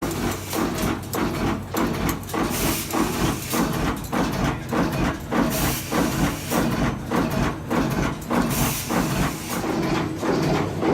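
Ikra Makina IPM-2000 strip-forming multiformer running, stamping and bending steel strip in a steady rhythm of about two strokes a second, with a short hiss every few seconds.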